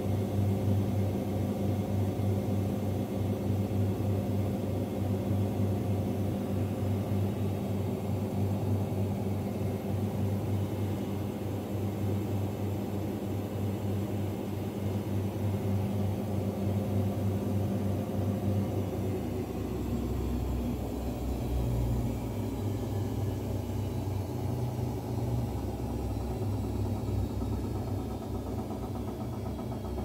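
Daewoo DWD-FT1013 front-loading washing machine running in its spin program with a steady low hum; about two-thirds of the way through, the hum shifts lower in pitch and pulses a little.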